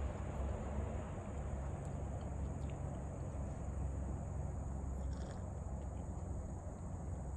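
Evening outdoor ambience: a steady low rumble under a continuous high, thin insect trill, with a few faint small ticks.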